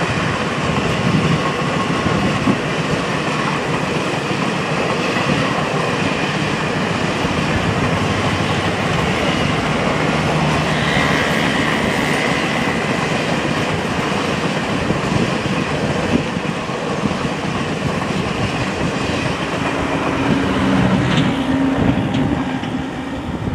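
Long rake of express passenger coaches rolling past on the rails, with a steady train rumble that falls away near the end as the train draws off.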